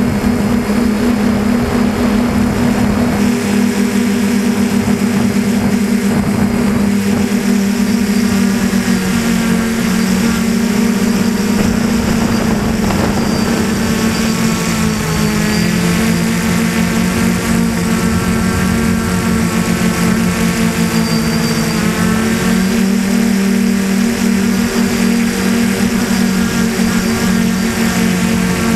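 DJI Flamewheel 450 quadcopter's four brushless motors and propellers, heard from a camera mounted on the frame, giving a loud, steady multi-tone hum. The pitch steps up and down several times as the motors change speed to steer and hold the aircraft in flight.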